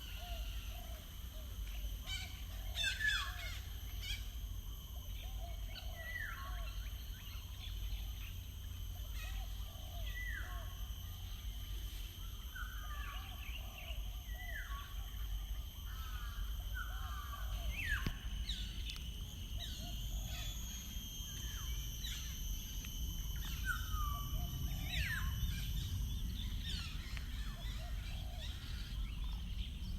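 Several birds singing. One repeats a short falling whistled note every second or two, amid other chirps and twitters, over a steady low rumble and a faint steady high tone.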